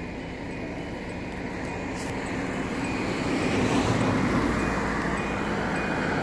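Motor vehicle noise: a steady rumble and hiss that grows louder about three seconds in and then holds.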